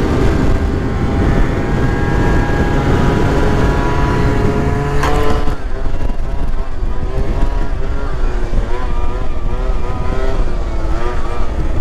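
MBK Booster Spirit 50cc two-stroke scooter engine held at full throttle, its note climbing slowly for the first five seconds, with wind rushing on the microphone at speed. About five seconds in there is one sharp knock, and after that the engine note rises and falls repeatedly as the throttle is worked.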